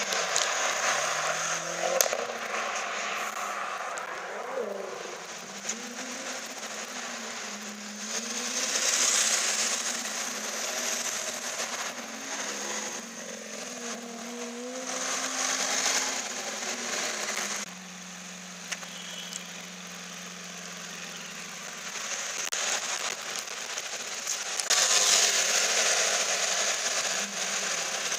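Lamborghini Aventador's V12 engine revving and accelerating away, its pitch rising and falling several times, with three louder surges of exhaust noise, the loudest near the end.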